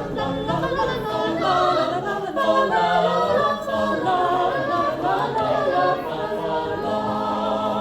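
Group of voices singing a cappella in harmony, with long held notes.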